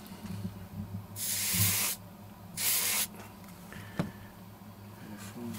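Two bursts of steam hissing from a clothes iron held on a wet paper towel, about a second in and again a second later, as heat and moisture swell a dent out of a foam-core composite tail surface. A light click follows near the end.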